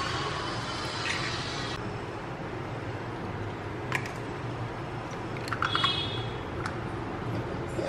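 Eggs cracked by hand into a ceramic bowl: a few sharp shell clicks, one of them about four seconds in, with soft wet squishing and dripping as the egg falls into the bowl, over a steady low background hum.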